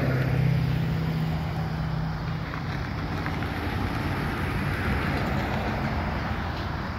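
A steady low engine hum fades out over the first two or three seconds. Road noise follows, as an SUV drives past near the end.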